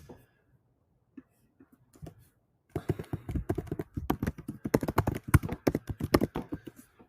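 Typing on a computer keyboard: a few scattered key clicks, then a quick, steady run of keystrokes from about three seconds in that stops just before the end.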